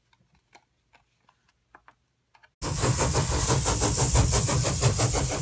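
Faint clicks of paper tabs being folded, then about two and a half seconds in a loud, rough sound effect starts abruptly with a fast, even rattle.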